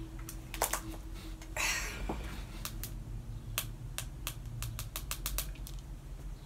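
Long fingernails tapping on a smartphone screen: a run of sharp, irregular clicks, with a brief rustle about a second and a half in.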